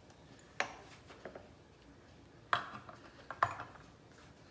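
A few sharp clinks and taps of cocktail-set utensils and shaker being handled while agave syrup is measured and poured in.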